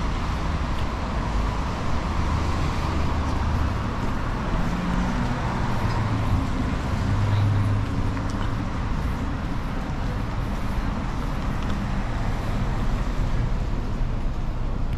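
City street traffic: cars and buses running past in a steady low rumble, with one louder vehicle passing about halfway through.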